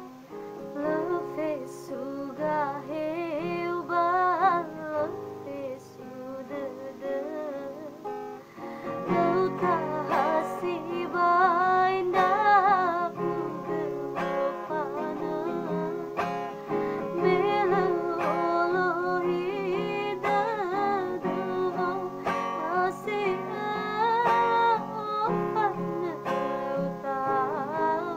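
A woman singing a slow song with vibrato over a guitar-led instrumental backing; the backing grows fuller about a third of the way in.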